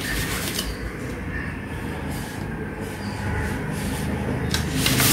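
A steady low rumble that grows louder toward the end, with short scratching of a pen drawing lines on paper near the start and again near the end.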